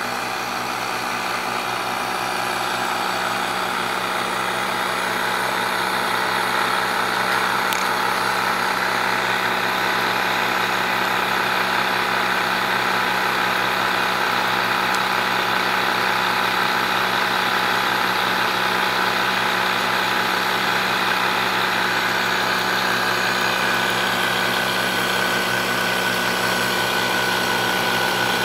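Electric machinery of a home-built downdraft wood gasifier rig running, a steady motor hum and whine with no let-up, growing a little louder over the first few seconds.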